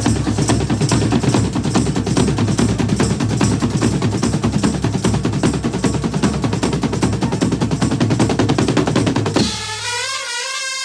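A brass band's drum section playing fast, dense rolls on snare drums, toms and a bass drum. About nine and a half seconds in the drums stop and the trumpets and saxophones come in with a note that slides up and then holds.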